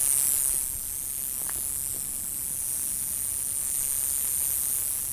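An unseen animal in the desert brush keeps up a steady, high-pitched buzzing hiss. It is a creature the walker hoped was not a rattlesnake, and it falls silent as he comes near.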